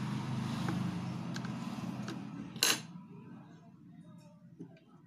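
Plastic housing of a Nokia 108 (RM-944) phone being worked apart by hand, with scraping, small clicks and one sharp snap about two and a half seconds in as a case clip lets go.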